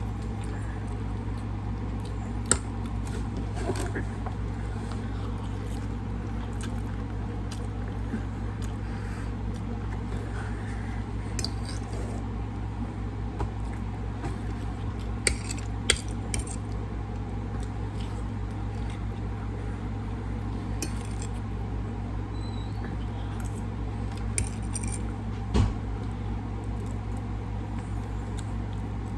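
Scattered light clicks and clinks of eating utensils against dishes during a meal, over a steady low hum, with one louder thump near the end.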